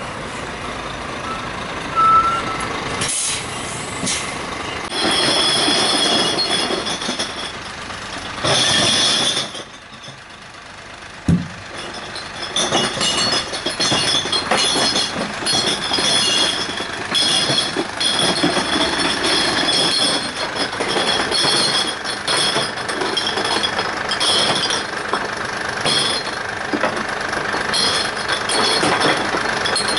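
Hino recycling collection truck working on a street: its diesel engine running, with sudden hisses, clanks and knocks and recurring high squeals.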